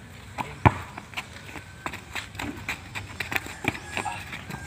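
Sounds of a pickup basketball game on a dirt court: irregular sharp knocks and slaps from the ball being handled and bounced and from players' feet in sandals, the loudest knock under a second in.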